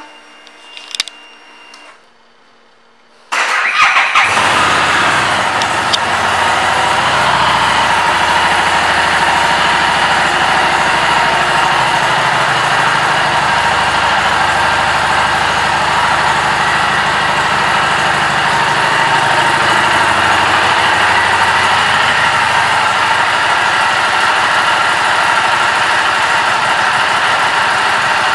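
A 2018 Harley-Davidson Street 500's liquid-cooled V-twin being started: a few clicks, then the starter cranks and the engine catches about four seconds in. It settles into a steady idle.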